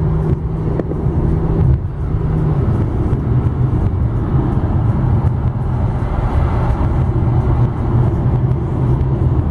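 A car driving at freeway speed, heard from inside the cabin: steady road and engine rumble.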